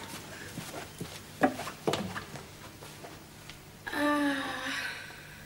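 Hurried footsteps and a few light knocks in a hallway, then a brief vocal exclamation about four seconds in.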